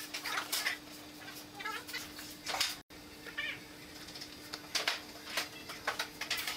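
Marker pen squeaking and scratching across wood in a series of short strokes, as lines are drawn along a steel rule, over a faint steady hum.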